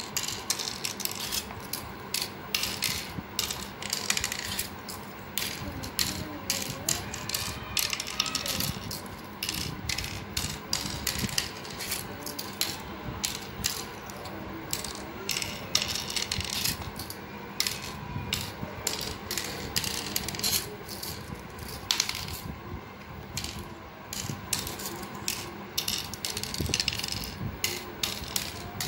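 Cowrie shells dropping one by one into the cups of a pallanguzhi board, sown from pit to pit. They make a quick, irregular run of light clicks and clatters, mixed with the rattle of shells picked up from a pit.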